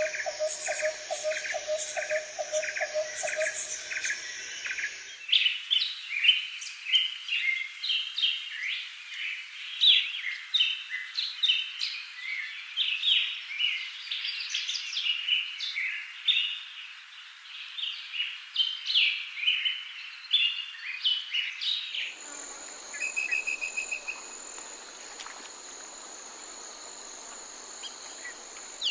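Forest birds calling, in three stretches. First a quick regular repeated call, several notes a second. About five seconds in it cuts to a busy chorus of chirps and song. About 22 seconds in it cuts again to steady high-pitched insect buzzing with a brief bird trill.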